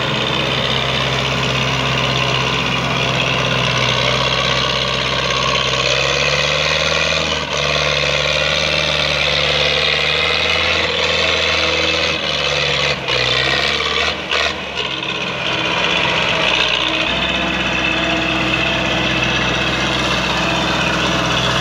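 Diesel farm tractor engine working hard under load as it pulls a heavily loaded sugarcane trailer. The engine note shifts in the middle stretch and settles again about seventeen seconds in.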